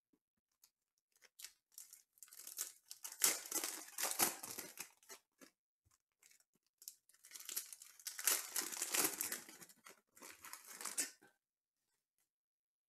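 Foil trading-card pack wrappers being torn open and crinkled by hand, in two bouts of a few seconds each.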